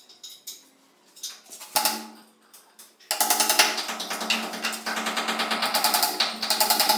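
A single knock as the melamine top panel is set onto the cabinet box, then a fast run of claw-hammer taps driving small nails through the top panel into the particleboard sides.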